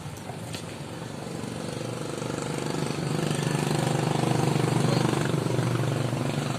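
A motor vehicle's engine passing by, growing louder over a few seconds and then fading.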